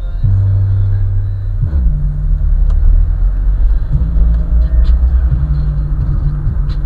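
Car audio system playing bass-heavy hip-hop loudly, its deep bass notes hitting hard and shifting pitch every second or so, with faint ticking beats above.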